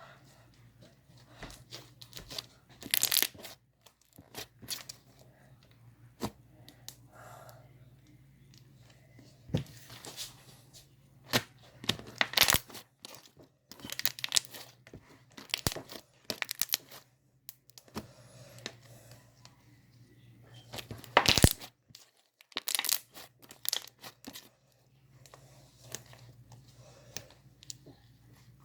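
Cornstarch slime being stretched, folded and squished by hand, giving off irregular crackles and pops; the cornstarch is what makes it so crackly and poppy. The crackling comes in clusters, with a few louder snaps.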